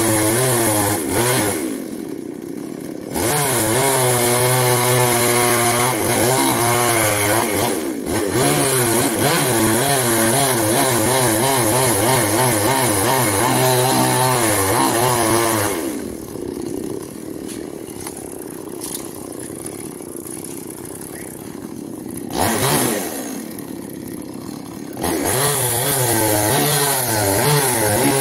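Chainsaw cutting into a coconut palm trunk, its engine held at full throttle with a wavering pitch as it bites through the wood. It drops back to a lower idle for several seconds, is blipped briefly, then goes back to full throttle for the next cut near the end.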